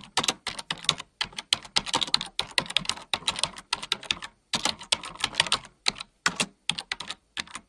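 Fast typing on a computer keyboard: rapid key clicks in quick runs, broken by brief pauses.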